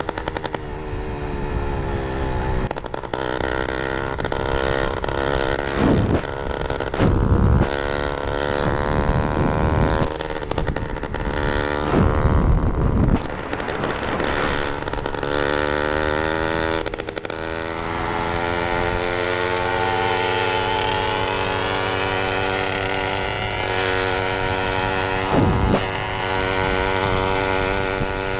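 Small two-stroke motorized-bicycle engine running while under way, its pitch wavering and then climbing steadily in the second half as it speeds up. Several bursts of wind rumble hit the microphone.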